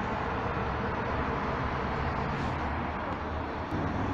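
Steady urban road traffic noise: an even wash of cars driving past, with no firework bangs standing out.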